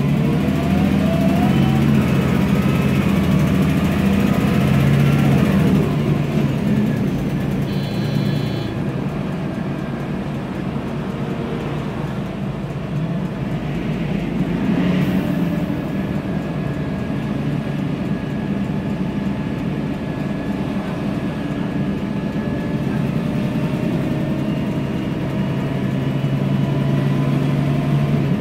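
Inside a moving city bus: the turbocharged MAN E2876 CNG engine pulling, with whine from the ZF Ecomat 6HP504C six-speed automatic gearbox. The whine rises in pitch over the first few seconds as the bus accelerates, then settles into a steady whine while cruising.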